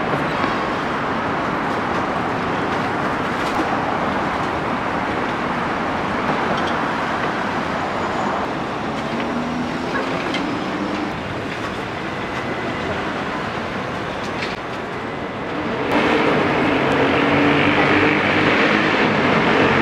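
Steady road traffic, cars passing close by on a city street, getting louder about three quarters of the way through as a heavier vehicle goes past.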